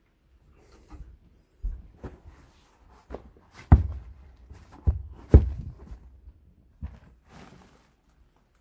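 A string of about seven irregular dull thumps and knocks, the two loudest about a third and two thirds of the way through, with light rustling between: things being handled and set down on a wooden floor during tidying up.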